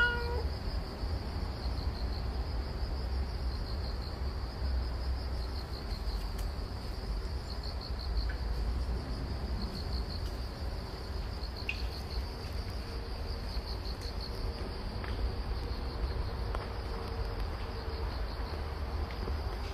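Crickets chirping in a steady high trill that pulses in places, over a low background rumble.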